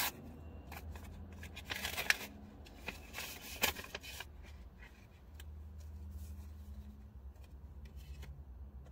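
Paper rustling and crinkling as a mailed letter is handled and opened, with two louder bursts in the first four seconds, then fainter handling.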